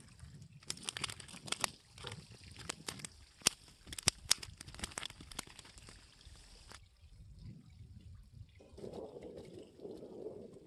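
Water splashing and dripping with many sharp wet clicks, as a hooked baam (Indian spiny eel) is swung out of the water and wriggles on the line. The clicks stop about seven seconds in.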